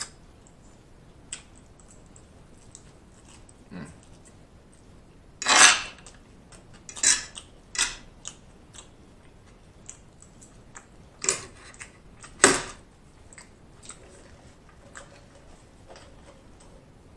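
Close-miked eating: a metal fork clinking and scraping on a plastic food tray while noodles are eaten, with a handful of sharp, loud bursts and smaller clicks between them.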